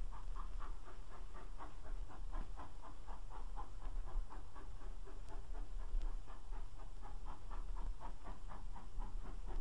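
GWR 'Castle' class 4-6-0 four-cylinder steam locomotive No. 5005 Manorbier Castle working hard at slow speed with a heavy train, its exhaust beating steadily at about four beats a second.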